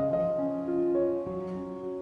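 Background piano music, held notes and chords changing every half second or so.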